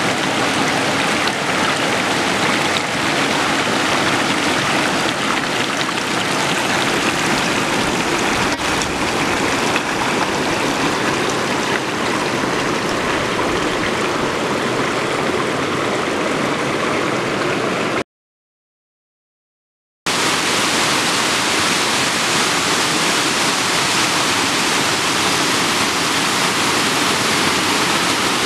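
Waterfall rushing steadily, swollen with spring snowmelt runoff. It cuts off completely for about two seconds past the middle, then returns as a second stretch of falling water with more hiss in the highs.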